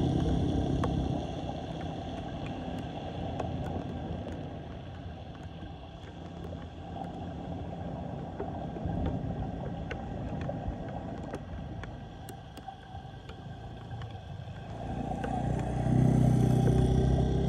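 Floodwater draining down a street storm drain, a low steady rush with scattered small clicks. A motor vehicle's engine hum is there at the start, then grows louder near the end as a vehicle passes close.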